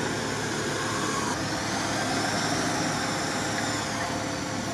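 Off-road 4x4's engine idling steadily.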